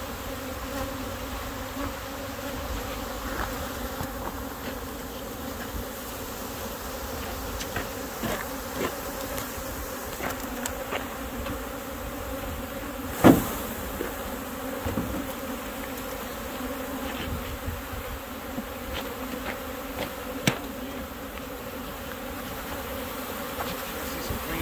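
A mass of honey bees buzzing steadily, a hum with several pitches at once, from bees being shaken into a package shaker box. Scattered light clicks run through it, with one sharp knock about halfway through and a smaller one later.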